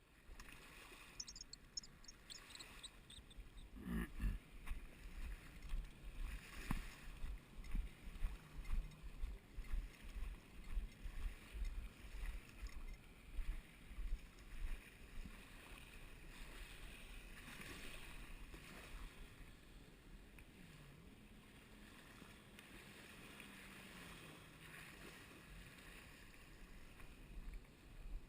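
Wind buffeting the microphone in irregular low gusts, over the faint low hum of a distant boat motor that wavers slightly in pitch.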